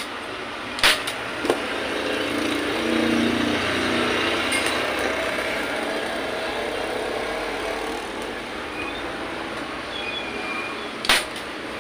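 Hand staple gun firing staples through a motorcycle seat cover into the plastic seat base: a sharp clack about a second in and another near the end. Between them a passing vehicle's rumble swells and fades.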